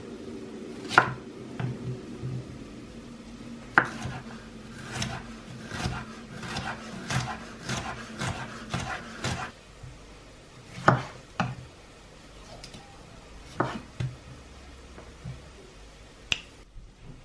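Chef's knife slicing a green bell pepper into strips on a wooden cutting board, the blade knocking on the board in irregular strokes, with a quicker run of cuts in the middle. A low steady hum lies under the first half and stops about halfway.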